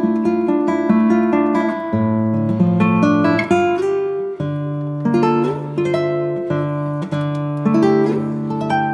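Background music: acoustic guitar being played, strummed and plucked notes.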